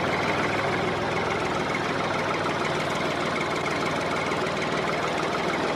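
Mini tractor's engine sound running steadily at idle, with no change in pace.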